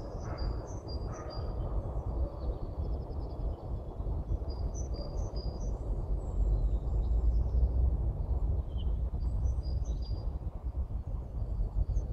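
Small songbirds chirping and singing in short, high, repeated phrases over a steady low rumble.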